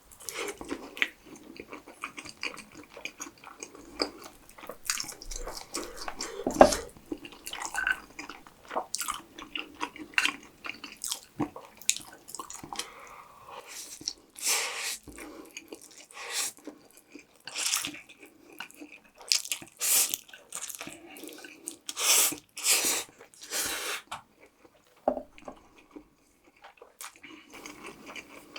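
A person chewing and biting food close to the microphone: irregular short clicks and smacks, louder and denser in the second half, with a brief lull a few seconds before the end.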